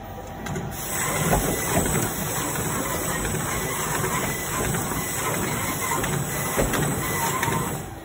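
Servo-driven six-lane plastic bag-making machine running: a steady mechanical clatter of rollers, belts and plastic film with a faint steady whine and a few sharper knocks. It grows louder about a second in and drops back just before the end.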